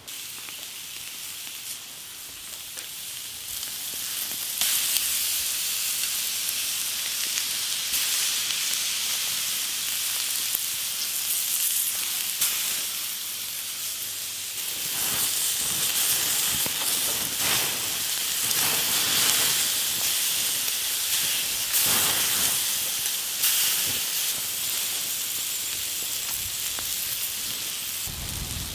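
Pieces of beef sizzling on hot stones over a fire pit. The hiss grows louder about five seconds in, with scattered pops and crackles in the second half.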